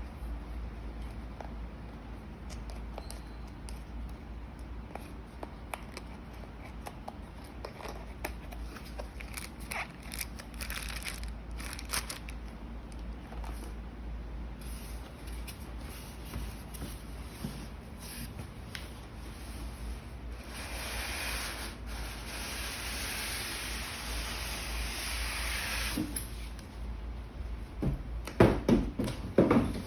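Hands handling objects: scattered rubbing, scraping and light clicks, then a steady hiss lasting about five seconds past the middle, and a few louder knocks near the end.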